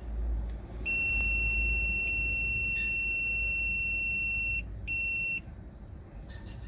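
An electronic buzzer sounds one long, steady, high-pitched beep lasting nearly four seconds, then a short second beep.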